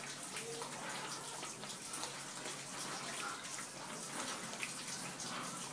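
Boerboel puppy lapping milk from a plastic bowl, a steady run of small wet laps and splashes.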